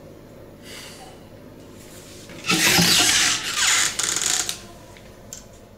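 A wooden wardrobe door being pulled open, rattling and scraping on its hinges and handle for about two seconds, starting about halfway through.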